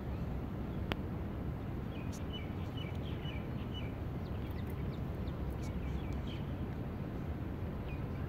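Steady low outdoor background rumble, with small birds chirping: a run of short chirps from about two to four seconds in, and a few more near the end. A single sharp click comes about a second in.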